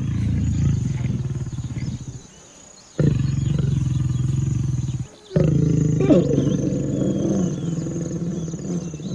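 Lions growling during mating: long low growls in three stretches, broken by two short pauses, the last stretch the loudest.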